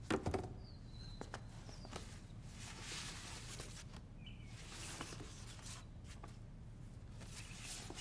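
Sheets of drawing paper rustling and sliding as pages are turned, in soft swishes about two, five and eight seconds in, after a brief thump at the very start. A few faint high chirps sound in the background.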